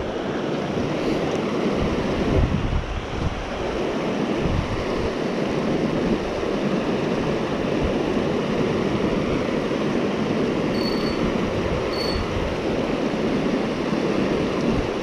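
Steady rush of a shallow river riffle running over rocks, with wind buffeting the microphone. Two short high chirps come about a second apart past the middle.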